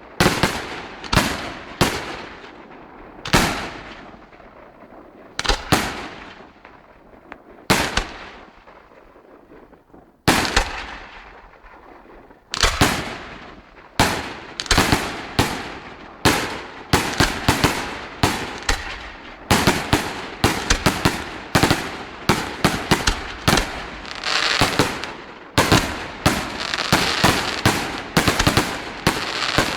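Aerial fireworks display: shells bursting with sharp bangs and echoing tails, spaced a second or two apart at first, then building about halfway through into a rapid barrage of several bangs a second.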